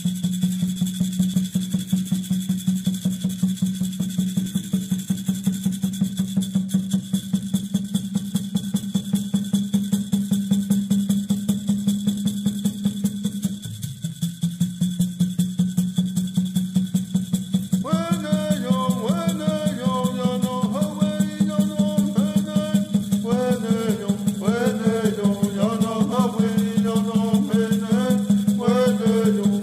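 Background music: a fast, steady beat over a sustained low drone, with a melody coming in a little over halfway through.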